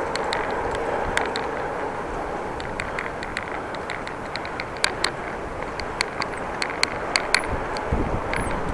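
Bicycle riding noise: a steady hiss and rumble of tyres and wind on the microphone, dotted with irregular sharp ticks. Near the end a gust of wind buffets the microphone with a deep rumble.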